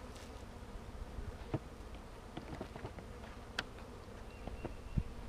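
Honeybees from a swarm buzzing steadily around an open hive, with a few light knocks from wooden hive parts being handled.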